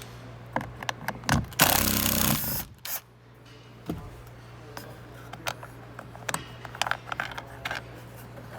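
Hand tools and plastic car door trim being worked: scattered clicks and taps, with one loud scrape lasting about a second near the start.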